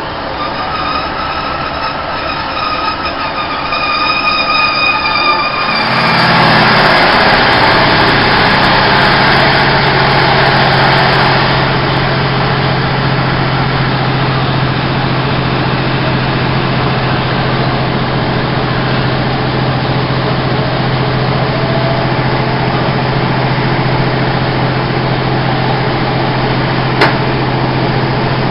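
Class 156 diesel multiple unit heard from inside the carriage while running. A steady high whine sits over the wheel and running noise for the first few seconds. About six seconds in, the underfloor diesel engine comes in louder with a steady low drone that holds through the rest. One sharp click comes near the end.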